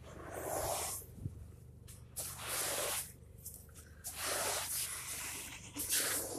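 A hand scraping and scooping wet sand at the bottom of a freshly dug beach hole that has reached water: four hissing, gritty scrapes with short pauses between them.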